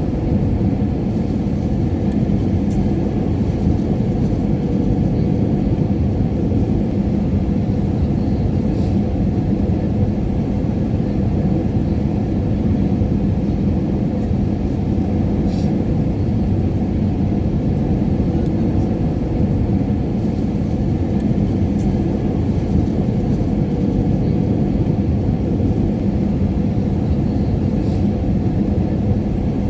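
Airliner cabin noise in flight: a steady low rumble of engines and rushing air, with a faint steady hum in it.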